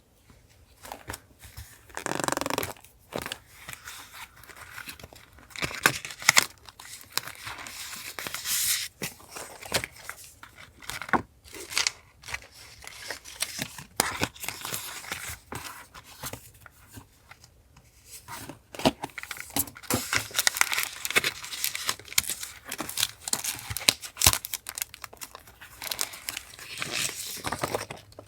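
Paper being handled for a journal collage: rustling and tearing in irregular bursts, with small sharp clicks and taps between them.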